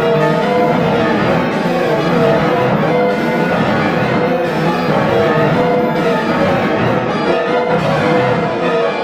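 Loud, dense orchestral-style music track made in BandLab, with sustained notes stacked thickly and no let-up.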